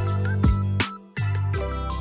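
Background music with a steady beat: drum hits, held bass notes and a plucked melody.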